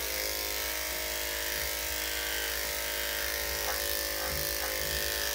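Electric dog grooming clippers fitted with a number 10 blade running steadily as they clip the dog's fur, a constant motor hum.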